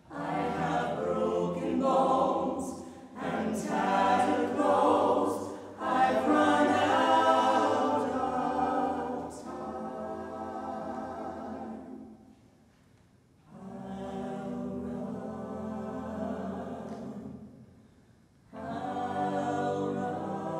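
Mixed choir of men's and women's voices singing a cappella in sustained phrases, with two short pauses between phrases, one about two-thirds of the way through and one near the end.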